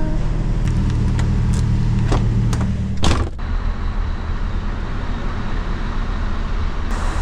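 Steady low rumble of idling lorry engines on a ferry's vehicle deck, with a sharp knock about three seconds in, after which the rumble is heard from inside a lorry cab.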